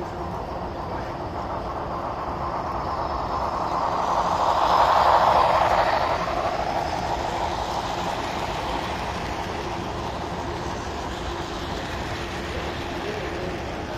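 HO scale model train running along the track, its wheel and motor noise swelling as it passes close by about five seconds in, then slowly fading.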